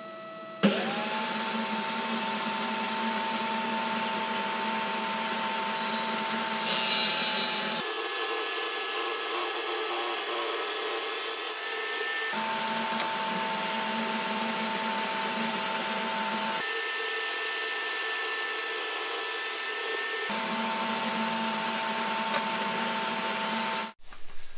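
Home-built table saw starting up and running with a steady whine. Its blade twice bites into a round wooden blank in a jig, adding a louder, rasping cut over the motor: light first test passes that remove only a little material.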